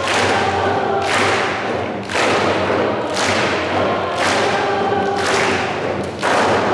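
A drum beating steadily, about one stroke a second, under a group of voices singing held notes, all ringing out in a large concert hall.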